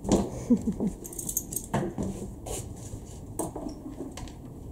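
A few sharp knocks and metallic clinks: a pony's halter hardware and rubber feed bucket being moved about on a concrete floor.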